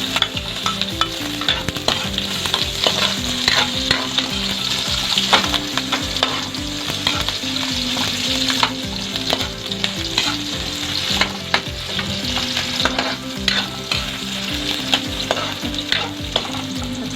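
Garlic sautéing in hot oil in a pan, sizzling steadily, while a spatula stirs it with frequent quick clicks and scrapes against the pan.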